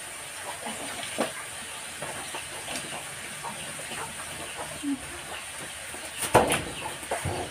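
A pot cooking over an open fire: a steady hiss of steam with scattered light clicks, and a louder clatter about six seconds in.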